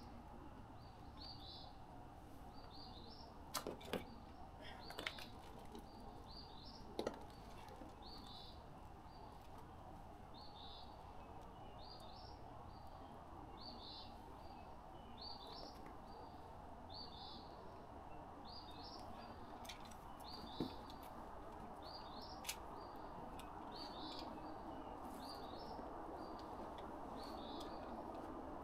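A small bird chirping over and over, short high chirps in pairs about once a second, over a steady background hiss. A few sharp clicks stand out in the first seven seconds.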